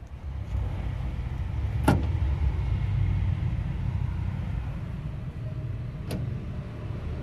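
Two sharp clicks about four seconds apart from the stuck rear door latch mechanism of a Suzuki APV being worked by hand, over a low steady rumble.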